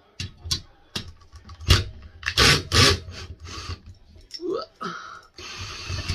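Hart cordless drill backing a screw out of a ceiling fan mounting plate: clicks and clatter of the bit and hardware being handled, then the drill briefly whirring near the end as the screw comes out.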